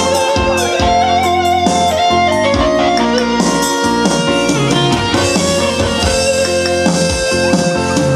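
Electronic arranger keyboard playing an instrumental melody over its own rhythmic drum and bass accompaniment.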